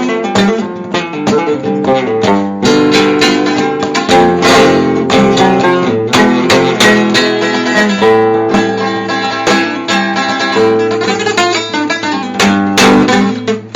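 Acoustic guitar playing an instrumental piece: a quick run of picked notes over held bass notes, with a loud strummed chord near the end.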